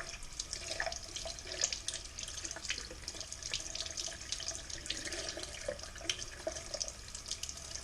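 Tap running, its water splashing over a peeled crayfish tail as it is rinsed by hand.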